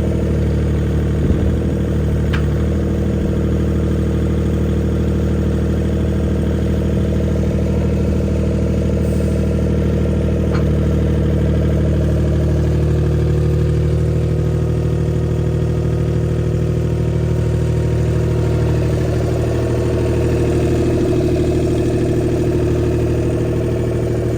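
Skid steer engine idling steadily at an even speed.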